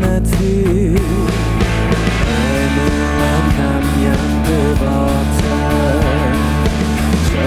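Rock band playing a song live: a wavering lead melody over guitars, bass and drums, with the bass and drums filling out about two seconds in.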